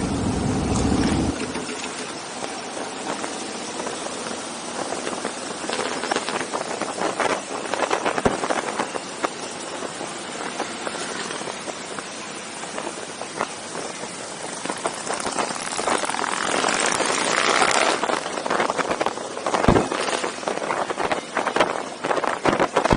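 Motorcycles running during a mass ride, heard through a steady rushing noise, with a heavy low rumble in the first second or so.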